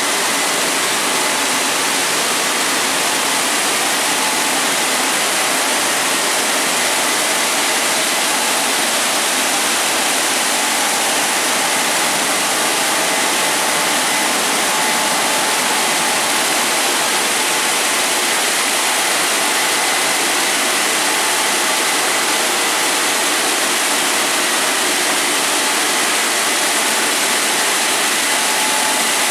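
Automatic car wash gantry spraying water over a car: a steady, even hiss of spray with a faint steady whine from the machine.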